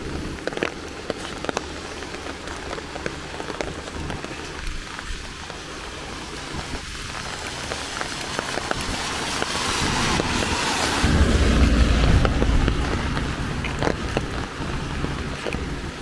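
Steady rainfall with scattered close drops ticking. About ten seconds in, a louder rushing swell with a deep rumble builds and then eases off.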